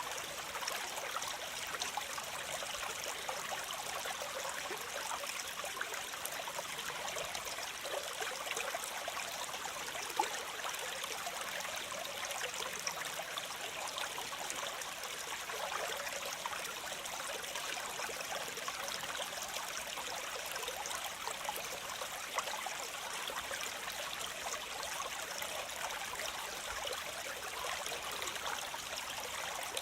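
Steady rush and splash of water from a waterfall, an even hiss sitting mostly in the higher range with little low rumble.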